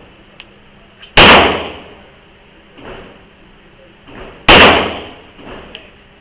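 Two gunshots about three seconds apart, each with a short echoing tail, with several fainter pops between and after them.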